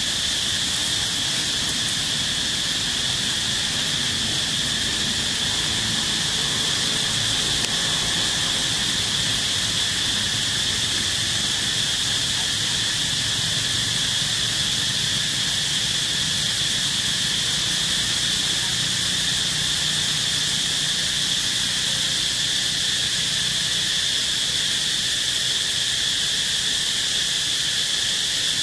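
Steady insect chorus: an unbroken high-pitched shrill, with a fainter, lower tone beneath it.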